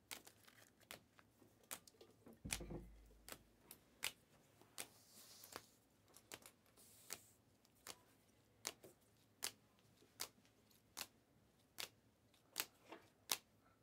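Faint, sharp clicks of Panini Prizm trading cards being flipped through one at a time, about every half second, with a dull low bump about two and a half seconds in and a soft sliding rustle a little later.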